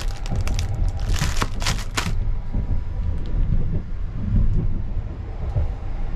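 Plastic food wrapper crinkling as a packaged pastry is handled, in crackly bursts over the first two seconds, over a steady low rumble from the train.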